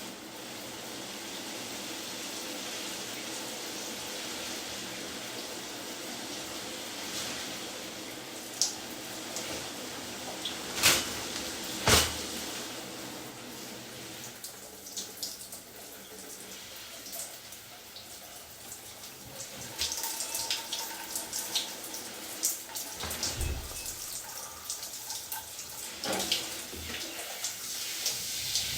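Rain falling: a steady hiss of water with drops pattering, denser in the last third. Two sharp knocks stand out a little over a third of the way in.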